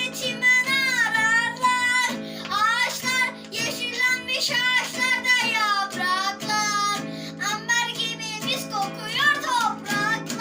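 A children's song: a high voice singing over plucked acoustic guitar accompaniment.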